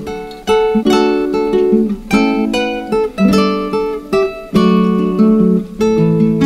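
Background music: a plucked acoustic guitar playing a melody of quick notes over a steady accompaniment.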